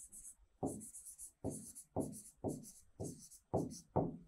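Stylus tapping and scratching on the screen of an interactive display as a sentence is handwritten on it, in short strokes about twice a second.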